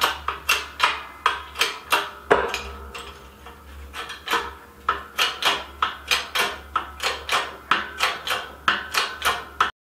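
Light hammer taps, about three a second, on the end of a lathe spindle in its cast-iron headstock, with a short lull about two and a half seconds in. The spindle does not budge: the belt pulley on it is seized. The tapping cuts off just before the end.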